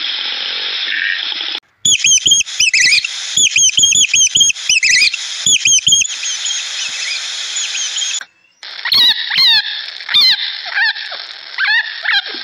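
Animal calls in separate edited segments: a noisy first part, then a quick run of short high chirps and squeaks, then a series of falling calls after a brief cut.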